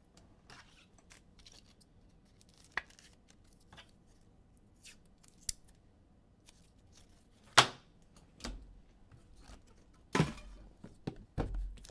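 Hands handling trading cards and their boxes on a table: scattered small clicks and taps, with a sharp knock about seven and a half seconds in and a heavier thump about ten seconds in.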